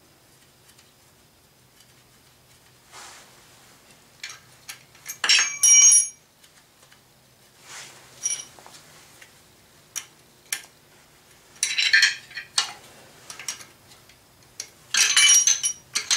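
Hand wrench clinking and rattling on the cylinder base bolts of a Yamaha Blaster 200 two-stroke engine as they are run in. The sharp metallic clinks start a few seconds in and come in short bunches, the loudest near the middle and near the end.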